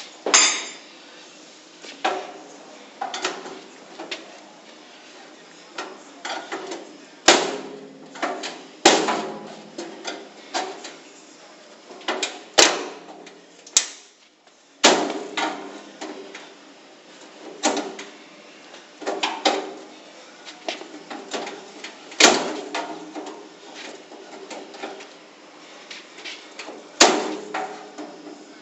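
A crowbar forced and banged against the door edge of a Modul-Safe safety locker: irregular metallic clanks and scrapes every second or two, the loudest strikes ringing briefly. The door holds against the attack.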